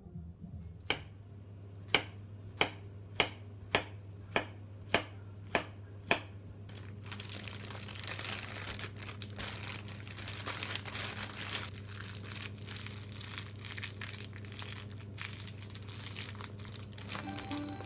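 Plastic zip-top freezer bag crinkling and rustling as it is handled and squeezed by hand to mix muffin batter inside it. Before the crinkling starts there is a run of about nine sharp clicks, a little under two a second.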